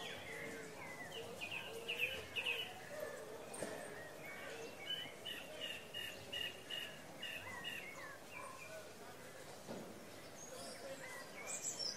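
Daytime town-square ambience recording: birds chirping and singing, with one bird repeating a short note about three times a second through the middle, over a low murmur of distant voices.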